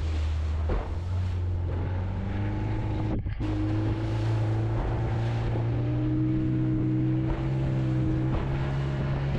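A small fishing boat's motor running under way, its pitch creeping up through the second half, with wind buffeting the microphone and water rushing past the hull.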